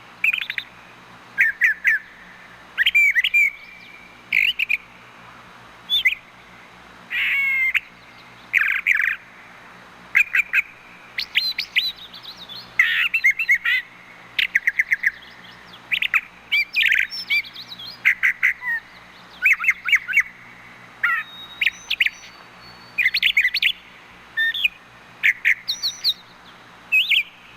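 Brown thrasher singing: a long run of short, varied chirping phrases with brief pauses between them.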